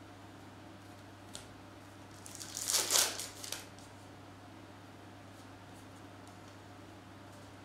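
Topps trading cards being handled and shuffled in the hand, with a crinkly rustle about a second long near the middle and a faint click before it.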